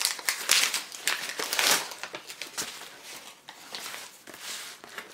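Packaging crinkling and rustling as a mail package is opened by hand, busiest in the first couple of seconds and then quieter and more scattered.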